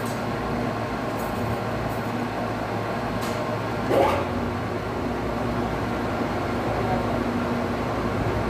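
Metal lathe running with a steady hum while a pipe adapter is machined, with a brief rising squeal about four seconds in, the loudest moment.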